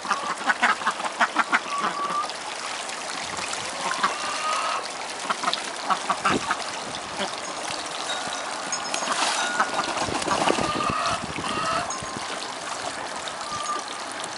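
Ducks bathing in a small garden pond: a quick flurry of splashes in the first couple of seconds and another about nine seconds in, with short soft duck calls scattered through, over steadily trickling water.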